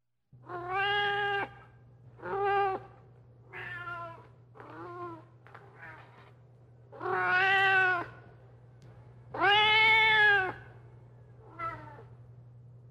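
A cat meowing again and again, about eight separate meows of varying length, the two longest and loudest coming about two-thirds of the way through. A steady low electrical hum runs underneath.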